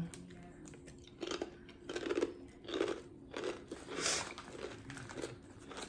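A person chewing gluten-free crackers, with a steady run of short crunches about every half second to second.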